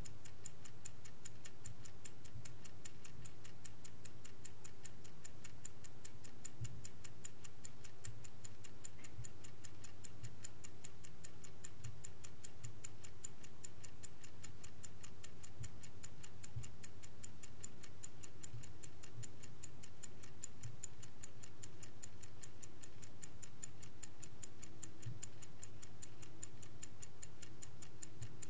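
Vintage Swiss-made Angelus clock ticking, a quick, perfectly even run of small mechanical ticks.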